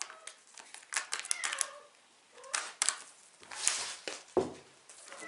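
Crinkling and clicking of empty foil cat-food pouches being batted and nosed about by cats, in scattered short crackles, with a dull thump about four and a half seconds in.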